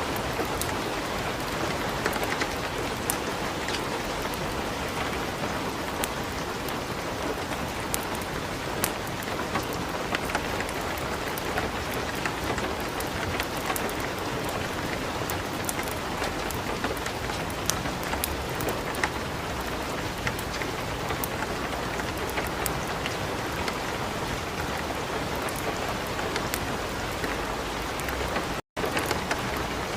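Steady light rain mixed with the crackle of a burning wood fire: an even hiss scattered with short sharp pops. The sound cuts out for an instant near the end.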